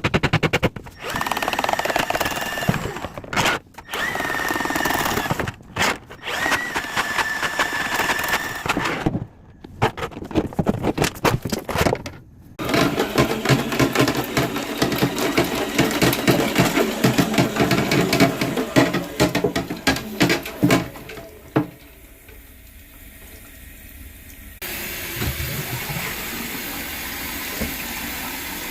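Power drill running in repeated bursts of a few seconds each with a steady whine, then a long stretch of dense rattling under the motor. After a short lull, a steady hiss starts about 25 seconds in.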